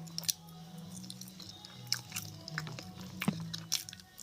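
Close-up eating sounds: a person chewing and biting chicken, with several sharp, crunchy clicks, over a low steady hum.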